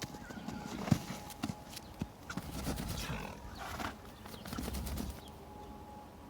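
Irregular crunching steps and knocks in snow, busiest over the first five seconds and easing off near the end.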